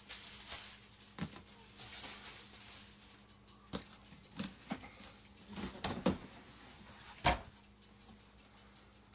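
Large cardboard model-kit boxes being handled: a hissy rustle for the first few seconds as a box is slid and gripped, then a string of dull knocks as it is lifted and set down, the loudest about seven seconds in.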